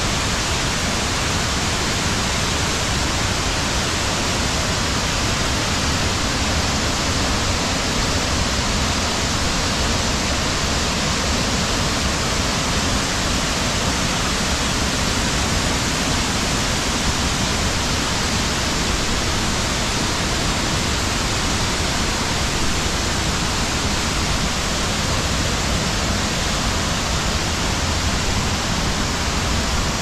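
Waterfall in rainy-season flow: heavy white water pouring over stepped rock cascades in a loud, steady rush.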